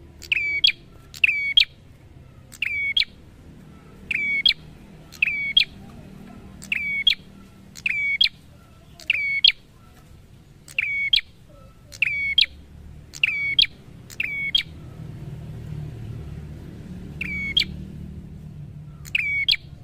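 A caged prenjak (a small rufous-crowned tailorbird-type warbler) calling: short, sharp chip notes repeated about once a second, with a pause of two to three seconds near the end.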